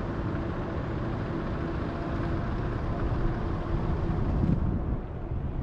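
A car running, heard from inside the cabin: a steady low rumble with a faint steady hum. The higher hiss drops away about four and a half seconds in.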